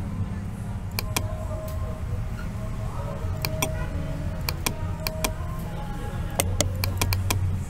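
Scattered computer mouse clicks and key presses, a dozen or so sharp clicks in small clusters, over a steady low background hum.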